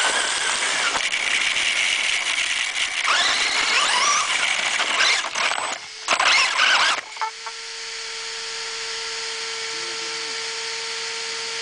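Radio-controlled car driving fast over grass and gravel, its motor whine rising and falling over the noise of the chassis and wheels. About seven seconds in the driving noise stops abruptly, leaving a steady, even motor whine.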